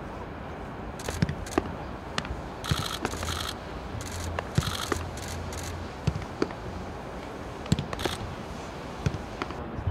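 Camera shutters firing in several short, rapid bursts of clicks, the longest lasting under a second, among scattered sharp knocks over a low steady background hum.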